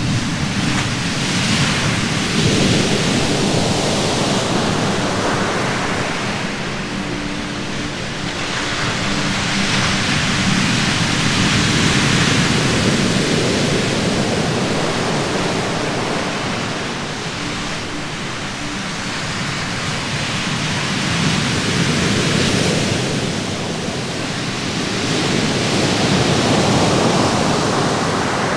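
Heavy Mediterranean surf, still rough after a storm, breaking onto a sandy beach: a continuous rushing wash that swells and ebbs with each set of breakers, about four surges.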